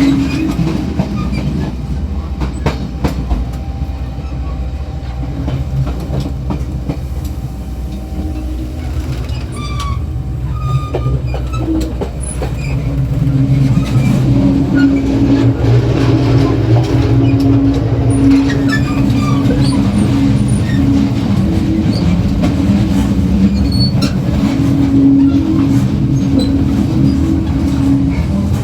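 Diesel multiple unit heard at the gangway between cars, open to the outside through a large hole: the diesel engine drones under the wheels running over the rails, with scattered clicks from the track. About twelve seconds in, the engine note swells and grows louder.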